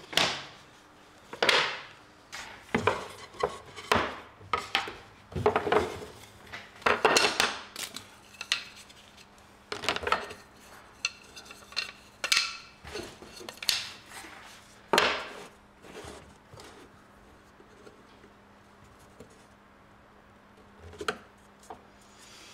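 Wooden boards with lacquered layers knocking and clattering as they are handled and stacked, a rapid series of sharp hits over the first fifteen seconds. After that it goes quieter, with a spatula working paste in a bowl and one more knock near the end.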